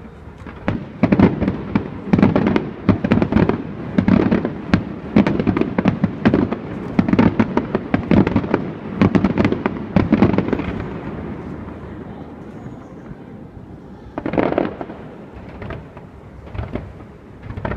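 Aerial fireworks bursting in rapid succession: a dense barrage of booms and crackles for about ten seconds, then a fading rumble, one more big burst and a few smaller bangs near the end.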